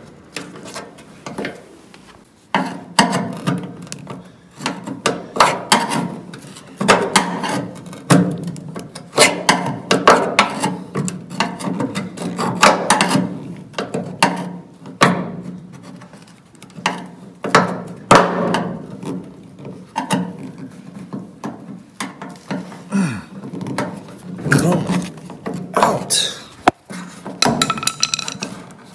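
A flat metal blade scraping and knocking against the rusty sheet metal of a truck cab while prying out a rubber grommet, in many irregular scrapes and taps.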